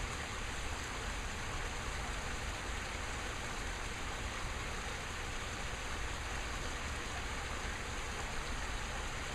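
Steady rushing and splashing of water spilling over stone waterfalls into a backyard garden pond.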